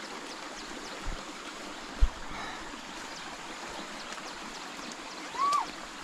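Steady rush of flowing stream water, with a sharp thump about two seconds in.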